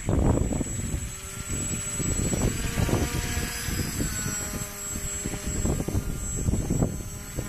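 Motor and pusher propeller of a model autogyro whining in flight, its pitch shifting up and down, under heavy gusty wind rumble on the microphone.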